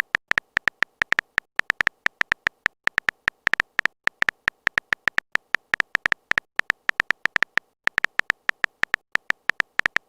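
A fast, irregular run of short clicks, about six a second, each with a brief high tick: a phone-keyboard typing sound effect as text is typed out.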